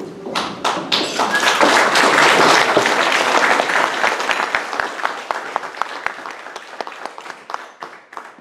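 Audience applauding. It swells within the first second, then thins to a few scattered claps near the end.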